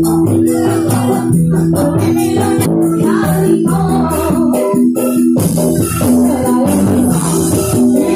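Loud live dangdut band music, with held low keyboard and bass notes and a busy beat.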